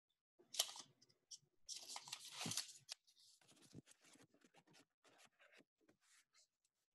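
Handling noise on a video call's microphone: bursts of rustling and scraping, the loudest about two seconds in, then a string of small clicks and taps.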